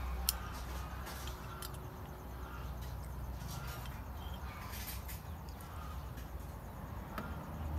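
Metal spoon scooping orange agar jelly from a glass cup, with a sharp clink against the glass about a quarter second in and a few lighter clicks later, over a steady low rumble.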